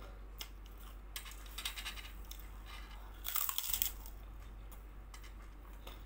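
Biting and crunching a crisp kerupuk cracker: two bouts of brittle crackling, about a second in and again just after three seconds.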